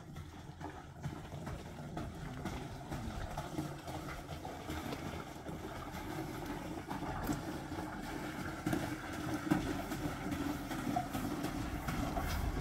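Water glugging and pouring from an upturned plastic jerrycan into a plastic water tank, growing louder.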